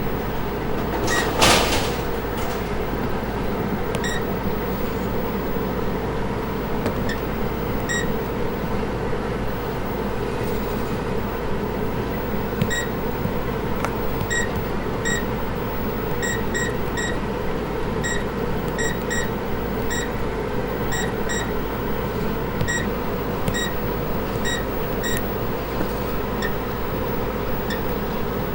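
Bowling alley computer beeping: short high beeps, singly and in quick pairs, repeating at irregular intervals over a steady background hum. A brief loud burst of noise comes about a second and a half in.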